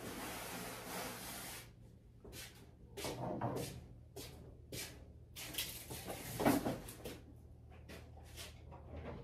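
Sandpaper rubbing over the urethane-finished wood of an ultralight wing for about a second and a half, then scattered short rustles and knocks of handling and moving about the workshop.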